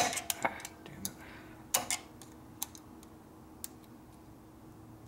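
Sharp clicks and light metallic taps of small metal parts and hand tools being handled while the points ignition is worked on. Several come close together in the first two seconds, then single clicks about once a second.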